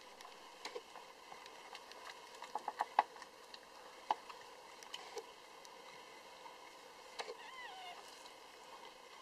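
A newborn Lhasa Apso puppy gives one brief squeaky cry that wavers and slides down in pitch about seven seconds in. Scattered soft clicks, with a quick run of them about three seconds in.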